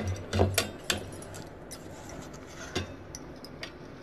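Stainless-steel mixer-grinder jar clinking and knocking against a steel mixing bowl as ground paste is scraped out of it by hand: a few clinks in the first second, then single ones later on.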